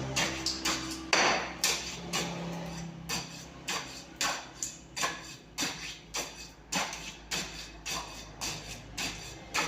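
Repeated knocks, about two a second, as fresh concrete is compacted in a cylinder mould for a compressive-strength test.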